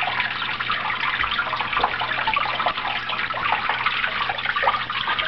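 Small indoor waterfalls splashing and trickling steadily into shallow pools, with a faint low steady hum underneath.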